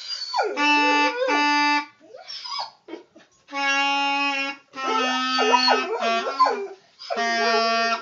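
Clarinet playing a run of held notes while an English setter howls along. Its wavering howls slide up and down over the notes, most clearly near the start and again in the middle.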